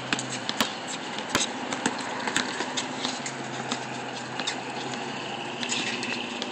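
Basketball bouncing on a concrete court, sharp irregular smacks roughly every half second, over a steady wash of outdoor noise with a faint low hum that comes and goes.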